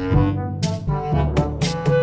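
Background music with a steady beat, a low bass line and held melodic notes.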